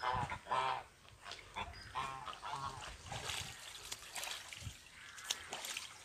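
Domestic geese honking: a few short calls close together in the first three seconds, then fainter ones, over the splashing of the birds in their water pool.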